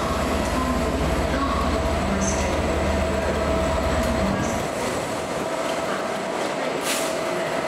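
Class 67 diesel locomotive's two-stroke V12 engine running as the locomotive moves along the platform, a deep, evenly pulsing rumble that drops away suddenly about four seconds in, over a steady hum.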